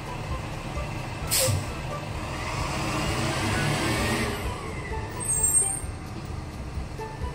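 A heavy vehicle's engine rumbling steadily, with a short sharp hiss about a second in and a longer hiss swelling and fading in the middle.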